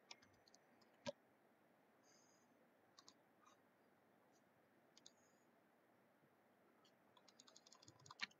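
Near silence broken by faint, scattered clicks from a computer keyboard and mouse, with one louder click about a second in and a quick run of clicks near the end.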